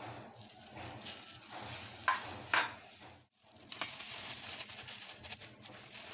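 Loose plastic food-handling gloves crinkling and rustling while a ball of biscuit dough is pressed with a steel spoon, with two sharp clicks about two seconds in. After a short dropout, a plastic scoop scrapes through soft dough in a steel bowl amid more crinkling.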